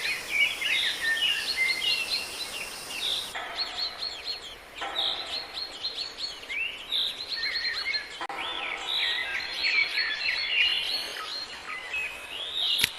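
Small songbirds chirping: a rapid, continuous run of short, high chirps and calls, repeated throughout, with a sharp click near the end.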